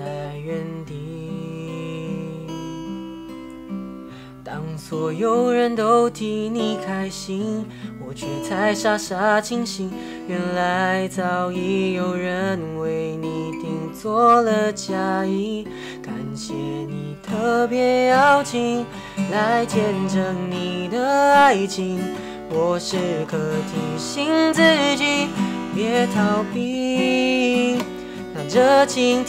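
Acoustic guitar strummed and plucked on its own, then a male voice sings a slow Mandarin ballad over it from about four seconds in. Both are picked up by a single overhead microphone.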